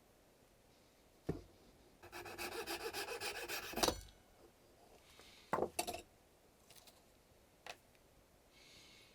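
Hands-on work on a video cassette recorder: a sharp click, then about two seconds of rapid scraping rasps, then a few more clicks and knocks of small parts being handled.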